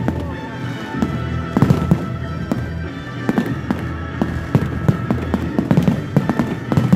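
Aerial fireworks display going off: a dense run of irregular bangs and crackles from shells bursting overhead.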